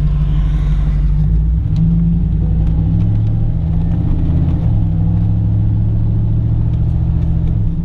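A vehicle's engine running as it drives, a loud low steady note that changes pitch twice.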